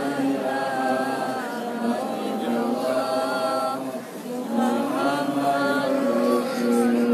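Many voices chanting together in unison, an Islamic devotional chant sung in long held notes. There is a short break about four seconds in before the chant goes on.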